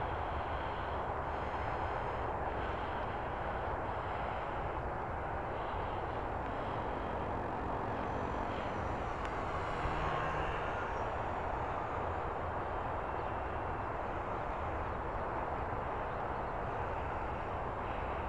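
Steady rushing noise with the faint, high whine of a radio-controlled model biplane's motor flying overhead.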